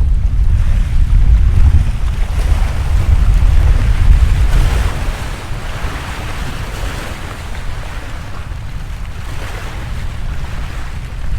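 Sea waves washing in, a steady surging hiss that swells twice, with wind rumbling on the microphone, heavy in the first half and easing off about halfway through.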